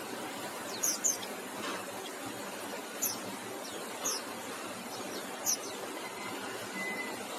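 Small birds chirping: short, high, falling chirps at irregular intervals, five or so, over a steady background hiss.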